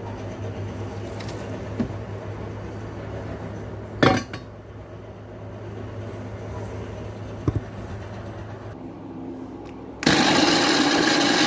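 A blender jar handled with a sharp clink about four seconds in and a small click later. Near the end a Philips countertop blender's motor switches on and runs loud, blending the cooked vegetable soup.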